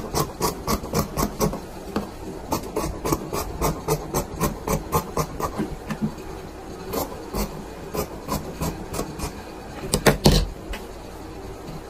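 Scissors snipping through fabric in quick runs of about four cuts a second, thinning out to scattered snips after the middle. There is a louder knock and rustle about ten seconds in.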